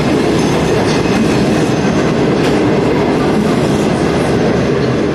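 Passenger train coaches rolling past close by: a steady rumble of wheels on the rails, with a few faint clicks.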